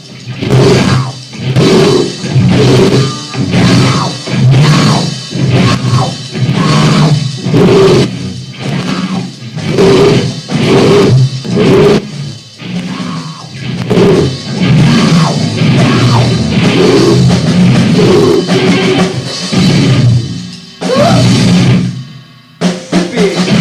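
Loud, distorted noise rock on a lo-fi recording: guitar and drum kit played in choppy bursts about once a second, with a brief stop near the end.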